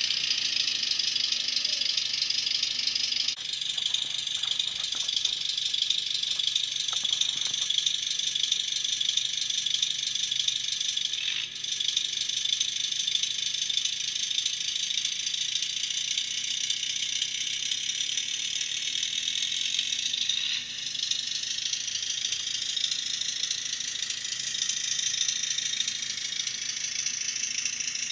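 ESU LokSound micro V4.0 sound decoder in an HOm model RhB Tm 2/2 tractor, playing a small diesel engine's running sound through the model's tiny speaker. It comes out thin and high with a rattle, steady apart from a change in tone about three seconds in.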